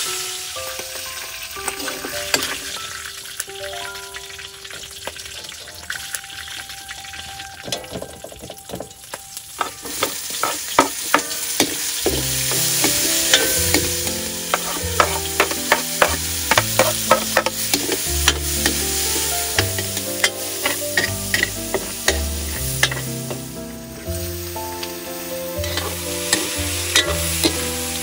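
Oil sizzling in a large steel wok as food is stir-fried, with a metal ladle scraping and clanking against the wok; the clanks come thick and fast from about ten seconds in. Soft background music with a moving bass line runs underneath.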